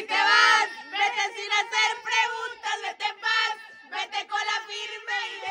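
Several people singing a song together, loudest in the first second, with a steady held note underneath.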